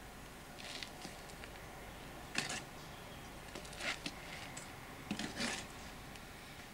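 A few faint, short gritty scrapes about a second apart, from a trowel and shovel being handled over a wet mortar bed laid for a paving slab.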